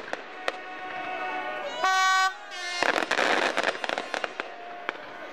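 Fireworks going off: scattered sharp cracks, a dense burst of crackling about three seconds in, and a short steady horn-like tone about two seconds in.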